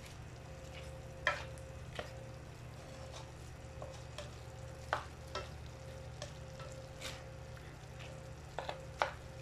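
Black plastic spatula stirring diced pork in a stainless steel frying pan, with irregular clicks and scrapes of the spatula against the pan over a faint steady frying of the meat.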